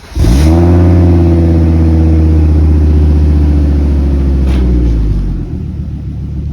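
1997 Volvo 850 T5's turbocharged five-cylinder engine, breathing through an OBX turbo-back exhaust, catching on a first start: it fires just after the start and runs loud at a steady raised idle. About five seconds in, the revs drop and it settles to a lower, rougher idle.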